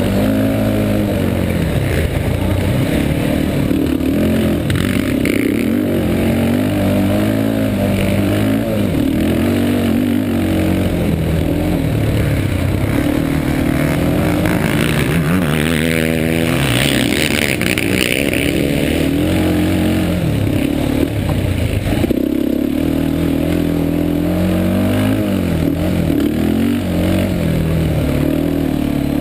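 Yamaha Warrior 350 ATV's single-cylinder four-stroke engine under hard riding on a dirt trail, the revs rising and falling again and again through throttle changes and gear shifts. Around the middle the pitch swings quickly and a rougher hiss and clatter join in.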